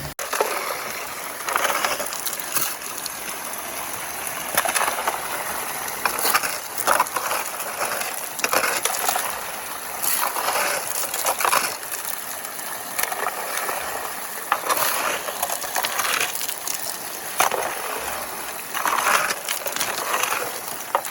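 Water rushing and splashing through a highbanker sluice, with irregular splashes and clatters as gravel and rocks are fed into it.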